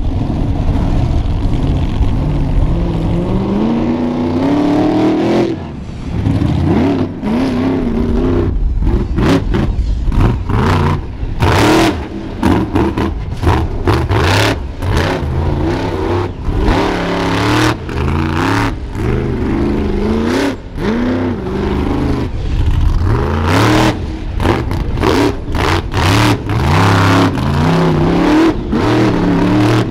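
Monster truck engine revving hard, its pitch climbing over the first few seconds and then rising and falling again and again with the throttle. Through the middle stretch it is punctuated by many sharp cracks.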